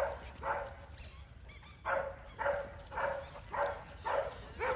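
A dog barking repeatedly in short barks, about two a second, with a pause of about a second after the first few.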